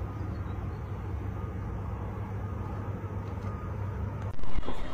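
Steady low outdoor city rumble, mostly deep noise with no distinct events, then a sudden louder burst of noise near the end.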